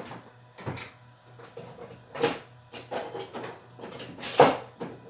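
Several separate knocks and clatters of tools being handled, the loudest about two and four and a half seconds in, over a faint steady hum.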